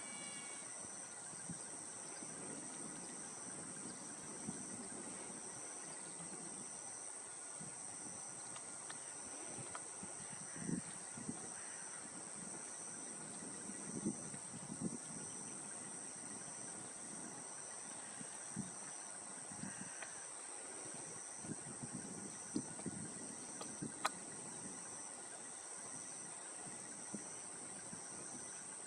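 Outdoor insect chorus: a steady high-pitched trill with a second, regularly pulsing insect call just below it. Faint low-pitched noises come and go, and there is a single sharp click about three-quarters of the way through.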